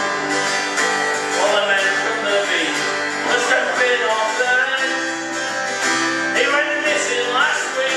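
Music with strummed acoustic guitar, in a country style.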